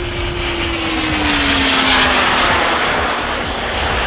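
BF Turbines B100F model jet turbine of an RC jet passing overhead: a loud rushing turbine noise that swells to its peak about two seconds in. A steady tone underneath drops in pitch about a second in as the jet goes by.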